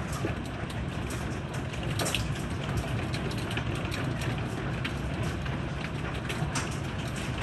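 Heavy rain with hail: a steady hiss of downpour with scattered sharp ticks of hailstones striking.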